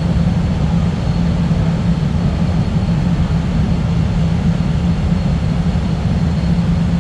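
CTA Blue Line subway car running between stations, heard from inside the car: a loud, steady low rumble with a constant hum.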